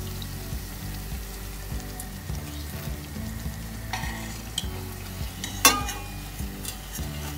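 Broccoli cutlets sizzling in shallow oil in a stainless steel frying pan, while steel spoons scrape and clink against the pan as they lift the cutlets out. A sharp clink of spoon on pan about five and a half seconds in is the loudest sound.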